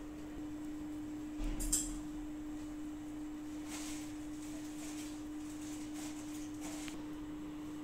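A steady humming tone, with a few faint clicks and rustles from metal knitting needles and yarn being worked by hand.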